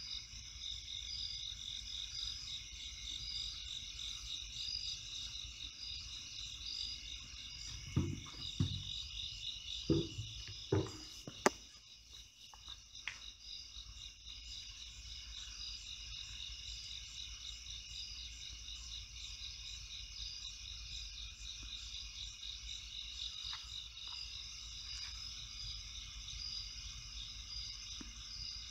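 Night insects chirping in a steady, finely pulsing chorus. A few dull knocks come about eight to eleven seconds in, ending with one sharp click.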